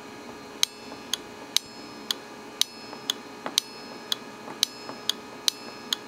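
A 24 V DC relay clicking on and off about twice a second, its contacts pulling in and releasing in turn with every other click louder. It sounds like a car's turn-signal flasher.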